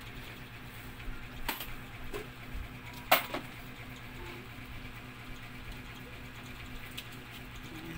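Steady low hum of an aquarium air pump driving a sponge filter, with a few sharp clicks, the loudest about three seconds in.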